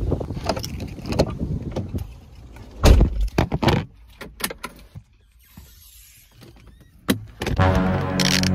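Knocks, thumps and small clicks of a phone being handled and set up inside a car, the loudest thump about three seconds in. Background music runs under the first two seconds and comes back near the end.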